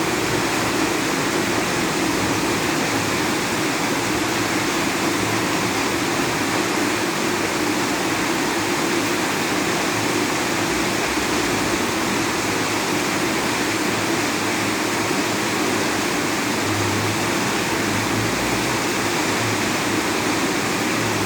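Heavy rain falling: a dense, steady hiss without a break.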